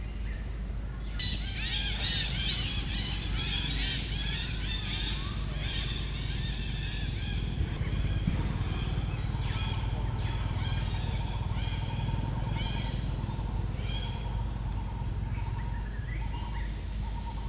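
Shrill squawking animal calls, many short arched cries in quick succession, starting suddenly about a second in and thinning out toward the end. A faint steady trill runs under them in the second half.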